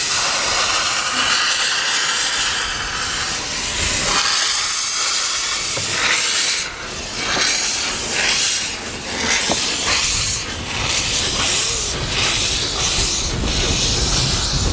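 Replica of Förstlingen, Sweden's first steam locomotive, hissing steam escaping low by its cylinders as it starts off. From about six seconds in, it chuffs with slow, regular exhaust beats as it pulls away with its carriage.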